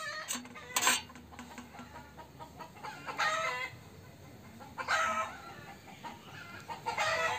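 Chickens clucking in three short bouts, with a sharp tap about a second in.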